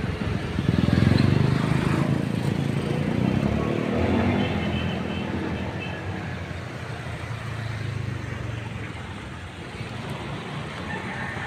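A motor vehicle passing, its engine rumble swelling about a second in and slowly fading away.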